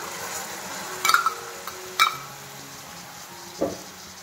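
Vegetables frying in oil in an aluminium wok, with a steady sizzle. Soy-soaked ginger, garlic and chilli are tipped in from a metal bowl, and metal strikes the wok with two sharp ringing clinks, about one and two seconds in, then a softer knock near the end.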